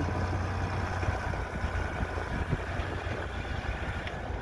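Land Rover Discovery's engine running steadily at low revs as the vehicle drives slowly along a rough, stony green lane.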